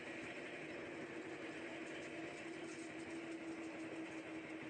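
Steady mechanical hum of a camera drone's propellers, a droning tone that wavers slightly in pitch over a background hiss.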